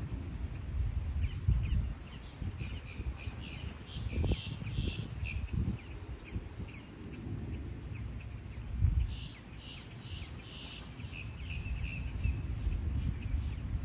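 Wind buffeting the microphone in uneven gusts, with birds chirping in quick runs of short high calls, one run about a quarter of the way in and more from past the middle.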